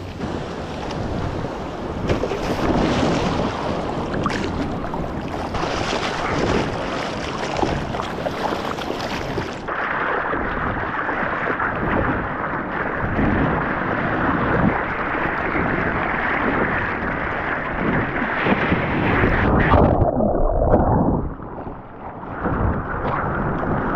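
Small breaking waves and whitewater washing around a surfer wading out, then water sloshing and splashing close by as he paddles a surfboard out. The sound turns duller about ten seconds in and goes briefly quieter and muffled about twenty seconds in.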